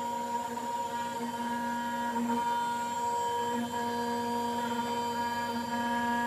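Steady electrical machine hum with one clear pitch and a ladder of overtones, holding even throughout.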